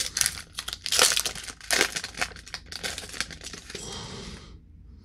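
Wrapper of a Topps baseball card pack being torn open and crinkled: a run of irregular crackles that dies away about four and a half seconds in.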